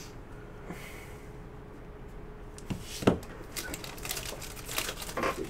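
Foil wrapper of a Topps Stadium Club baseball card pack being torn open and crinkled, a run of crackling rustles in the second half, with a single thump about three seconds in.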